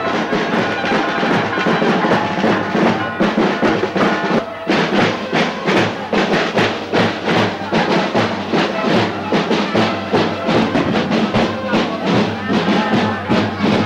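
Band music with drums beating a steady, even rhythm under sustained instrument melody lines.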